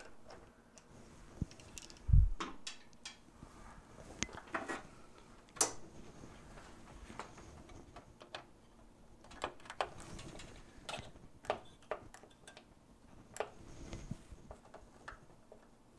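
Scattered small metallic clicks and taps of a nut driver working the screws and parts of a pinball flipper assembly as it is taken apart, with one dull thump about two seconds in.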